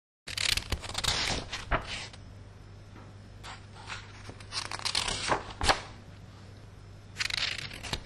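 Paper pages of a spiral-bound flip book being turned by hand: about four bouts of rustling, each with sharp flaps and clicks as the leaves land, with short quiet gaps between.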